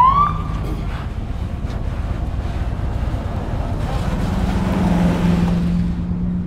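A fire engine's siren gives one short rising whoop at the very start, over a steady low rumble. About four seconds in, a steady low engine drone comes in with a hiss over it as the fire engine draws near.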